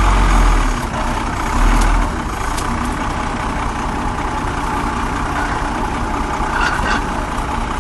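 Swab truck's engine running steadily. It gives two heavier, louder low rumbles in the first two seconds, then settles to an even run.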